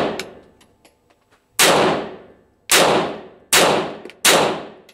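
A pistol firing a string of shots: the echo of one shot dying away, then four more shots about a second apart, each followed by a long echo.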